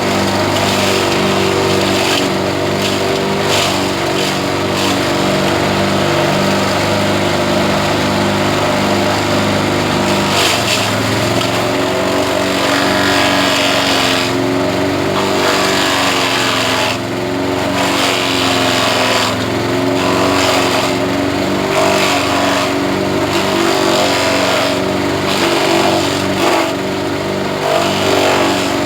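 Engine-driven grass chopper running loudly and steadily. Its engine note drops about ten seconds in, then wavers up and down.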